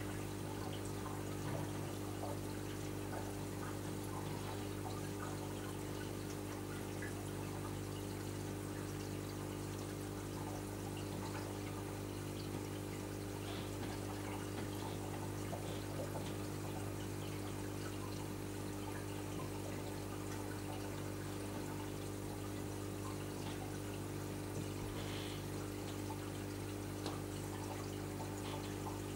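Marine reef aquarium's water circulation running: a steady electric pump hum under constant trickling water.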